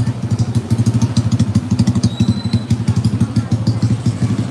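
Motor scooter engine running at low speed, a fast, even putter, with scattered light clicks and a short high-pitched tone about two seconds in.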